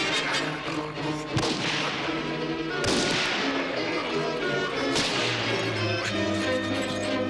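Dramatic film soundtrack: sustained orchestral music cut by three sudden swishing crashes, about a second and a half, three and five seconds in, as in a fight sequence.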